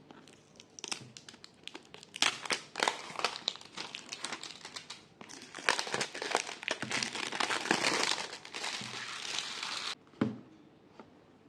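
Packaging crinkling and rustling with many small clicks and taps as a sealed product box is unsealed and opened by hand; it stops abruptly near the end, followed by one short knock.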